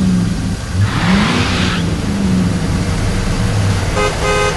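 Cartoon vehicle engine running and revving up twice, with a rushing whoosh about a second in. Near the end come two short car-horn toots.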